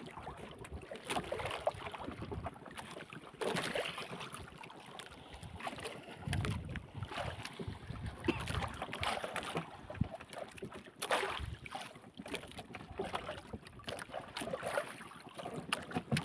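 Choppy water slapping and sloshing against the hull of a small fishing boat, with wind buffeting the microphone and a few sharp knocks.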